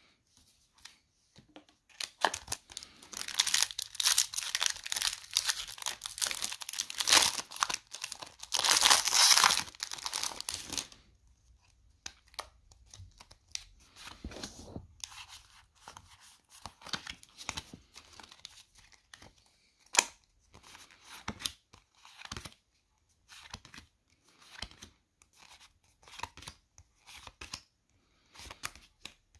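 Foil Pokémon booster pack wrapper being torn open and crinkled for about nine seconds, then a long run of short, soft clicks and rustles as the cards inside are handled.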